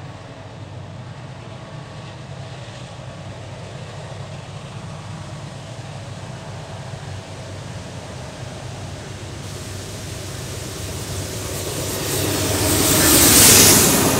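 Norfolk Southern freight train's diesel locomotives pulling out of a tunnel: a steady low engine drone that grows louder as they approach. It peaks near the end as the lead locomotives pass close by, with a rush of wheel and rail noise.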